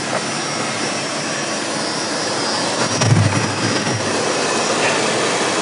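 Dodge V8 engine idling with its doghouse cover off, heard from inside the van, under a steady whoosh from the air conditioner blowing on high; the engine is warming up to operating temperature. A low thump about three seconds in.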